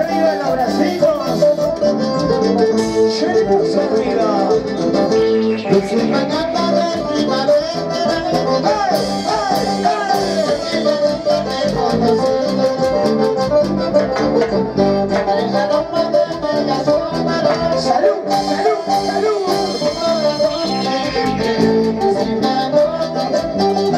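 Live band playing loud amplified music with electric guitars, drums and keyboard, a lead guitar line running over a steady beat, with some singing.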